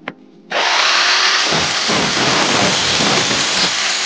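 A handheld angle grinder switched on about half a second in and spinning up at once to a loud, steady running noise. From about a second and a half in, its disc grinds through a metal piece with a rough, heavier sound for about two seconds.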